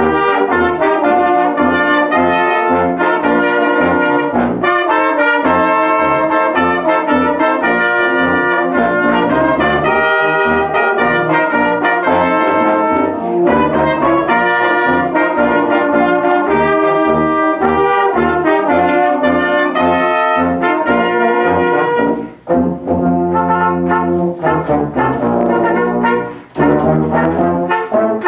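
Brass band of euphoniums, tubas and a trumpet playing a piece together in harmony, with two short breaks between phrases near the end.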